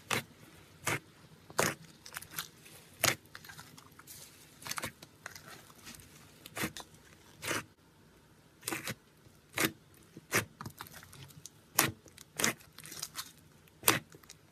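Slime mixed with Nerds candy being squeezed and pressed, giving irregular sharp crunches and crackles, roughly one or two a second.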